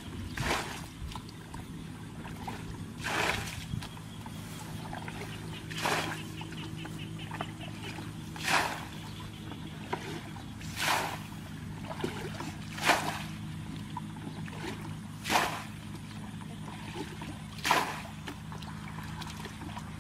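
Muddy water bailed out of a shallow pool with a plastic bucket: a splash each time a bucketful is flung out, about every two and a half seconds, eight times, with sloshing between, over a steady low hum.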